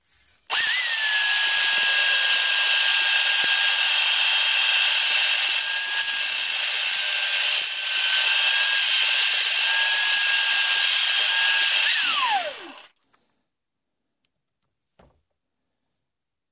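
Power drill running steadily for about eleven seconds while a twist bit bores the ramrod hole into a horn ramrod tip, with a high, steady motor whine over a hiss of cutting. Near the end the whine drops in pitch as the motor winds down and stops.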